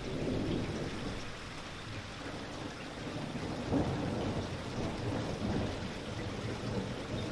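Steady rain falling, a continuous hiss with a heavy low rumble underneath that swells and eases slightly.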